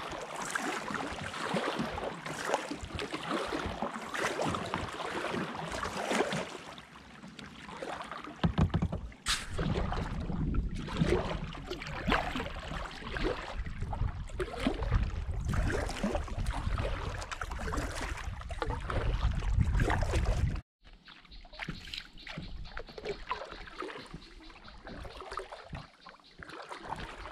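Kayak paddle strokes dipping and splashing in the water, with water lapping along the hull. Through the middle stretch a heavy low rumble of wind buffets the microphone, then cuts off suddenly about two-thirds of the way in, and the splashing goes on more quietly.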